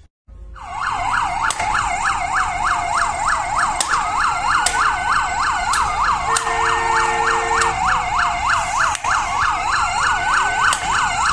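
Emergency vehicle sirens: a fast yelp repeating about three times a second with a slower wail rising and falling over it. A brief steady low tone sounds about halfway through.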